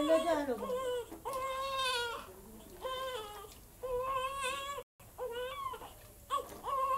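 Newborn baby crying in about six short wails one after another. The sound cuts out completely for a moment near the middle.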